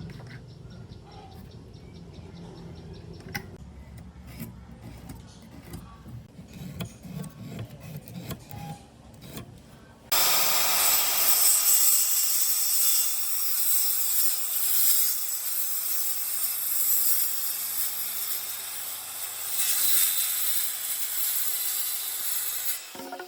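A tool scraping on wood makes a dense, steady hiss that starts suddenly about ten seconds in. Before it there is a quieter low rumble with scattered light clicks.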